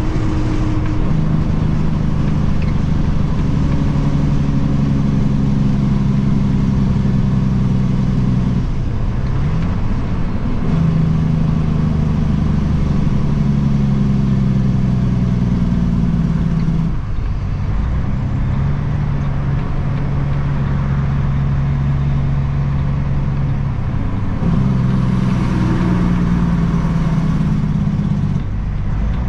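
Kenworth W900 dump truck's diesel engine running on the highway, heard from inside the cab. The engine note breaks off and comes back at a new pitch three times: about nine, seventeen and twenty-four seconds in.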